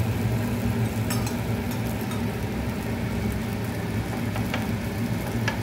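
Paneer cubes sizzling as they shallow-fry in oil on a flat pan, golden and just turned. A steady low hum runs underneath, and a steel spoon clicks lightly against the pan about a second in and a few times near the end.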